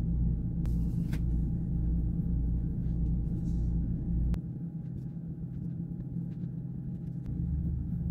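A steady low mechanical hum with a few faint clicks. The deepest part of the hum drops away about four seconds in and comes back near the end.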